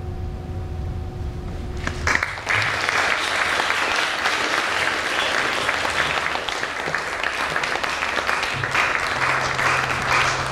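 A held note of the closing music and a low drone stop about two seconds in, and the audience at once breaks into steady applause that continues.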